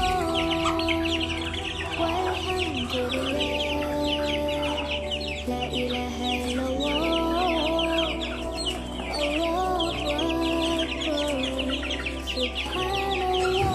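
Background music with a slow, held melody and steady bass, over a flock of birds chirping rapidly and without pause.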